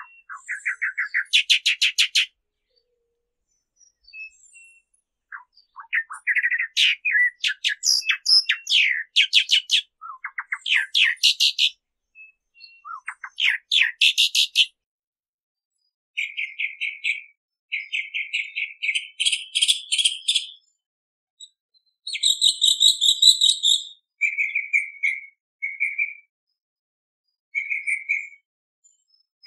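Mockingbird song: first a long-tailed mockingbird's bursts of fast repeated notes, the phrase changing every second or two with short pauses between. In the second half comes a tropical mockingbird's song, with chattering, scratchy phrases and then short whistled notes given one after another.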